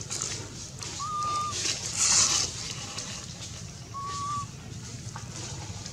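Dry leaf litter rustling, with one louder crackle about two seconds in. Two short, clear, steady whistle-like calls sound about three seconds apart, the first about a second in.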